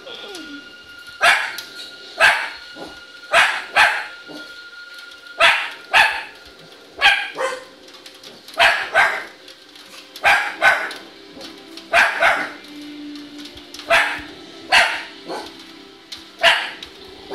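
Small dachshund–schnauzer mix dog barking again and again in short sharp barks, often in pairs, at dogs on the television. A film soundtrack plays faintly underneath.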